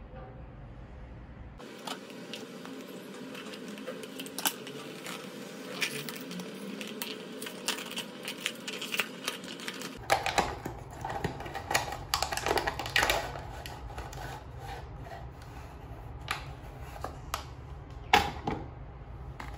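Cardboard blind box being handled and opened by hand: a dense run of clicks, taps and scrapes of card as the flaps are pulled open, with a sharp crinkle of the foil inner bag near the end.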